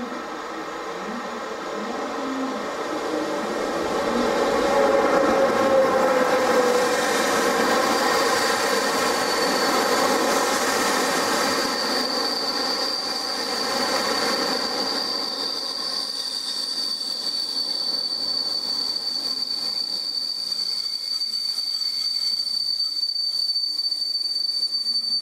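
Passenger train of ČD coaches running into the station and braking: the rumble of the wheels on the rails builds over the first few seconds. A steady high squeal sets in about eight seconds in and holds as the coaches slow almost to a stop.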